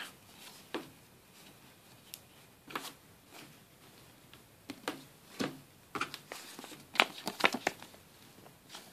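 Trading cards being handled, with scattered soft slides and flicks of card stock. From about six seconds in comes a denser run of sharp clicks and crinkles, from a torn foil booster-pack wrapper.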